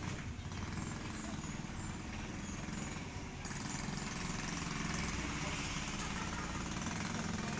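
A motor running steadily with a low hum.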